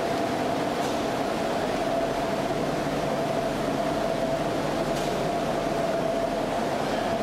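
Steady mechanical hum of the inclined-railway station's machinery: an even rushing hiss under one constant mid-pitched tone, with a couple of faint ticks.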